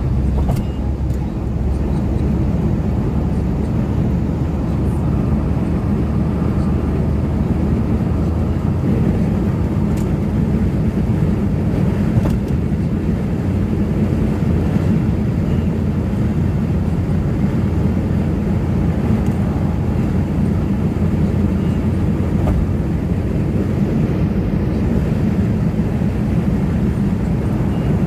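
Steady low rumble of a car on the move, tyre and engine noise heard from inside the cabin while driving on a highway.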